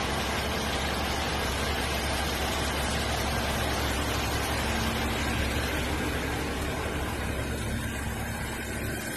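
Engine of a truck-mounted manlift running steadily with a low hum, a little quieter near the end.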